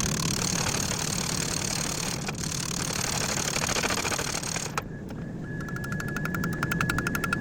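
Steady low machine roar with a loud hiss over it that cuts off suddenly about five seconds in; about a second later a rapid, even mechanical clatter starts, with a steady high whine.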